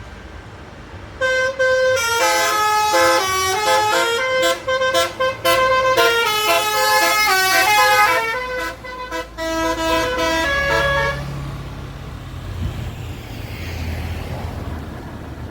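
Tour bus's telolet basuri musical air horn playing a tune of loud stepped notes for about ten seconds, then the bus's engine rumbling.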